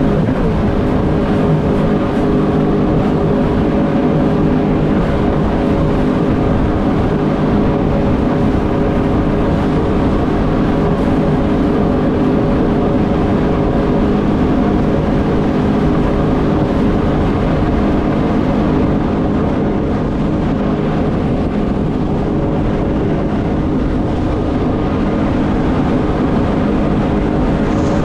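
Jet ski engine running steadily at speed, holding an even pitch over the rush of water.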